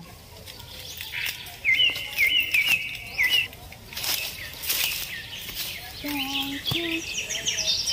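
Dry coconut fronds rustling and crackling as they are handled, with small birds chirping in quick repeated phrases. A few short low calls come in near the end.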